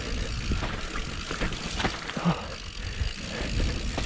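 Mountain bike, a Canyon Spectral AL 6.0, rolling fast down a dry dirt singletrack, heard from a camera mounted on the bike or rider. Tyre noise on the dirt and a steady low rumble run throughout, with scattered small knocks and rattles from the bike over bumps.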